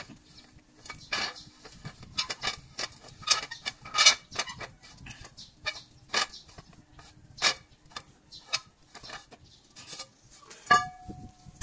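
Irregular sharp metallic taps and clinks as a small hammer knocks on the clamp and tie rod end of a truck's steering cross tube to loosen it. One clink near the end rings briefly.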